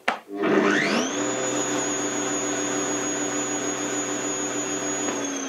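Bosch AXT 2200 Rapid garden shredder's electric motor switched on with a click, whining up in pitch within about a second and then running at a steady speed. This is a normal start that levels off instead of overspeeding and cutting out, now that the magnet on the motor shaft is glued in place. Near the end it is switched off and its pitch starts to fall as it runs down.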